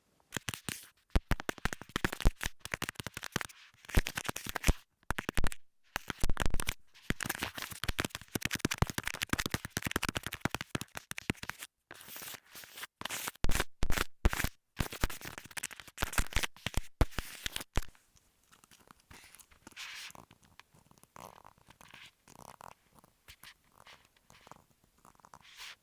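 Close-miked sticky tape being scratched, crinkled and peeled, a dense crackling scratch with a few brief pauses. About eighteen seconds in it turns softer and sparser.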